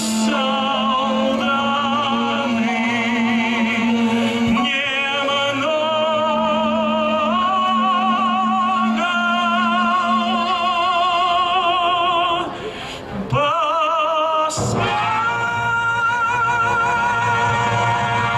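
Operatic-style singing of long held notes with wide vibrato over an accompaniment. The voice moves to a new note every second or two, dips briefly about two-thirds of the way through, then slides up into another long held note.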